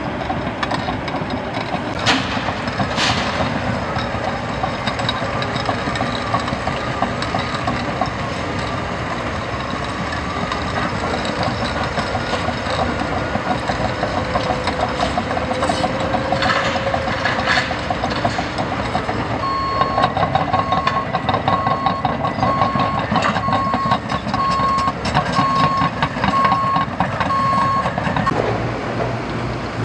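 Diesel earthmoving machinery running steadily, with a few sharp metallic clanks. From about two-thirds of the way in, a reversing alarm beeps at one steady pitch, a little more than once a second, stopping shortly before the end.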